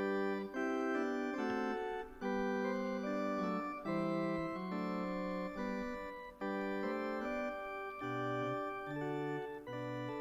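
Organ playing a hymn tune in held chords, phrase by phrase with brief breaks about every two seconds: the introduction to the hymn just announced.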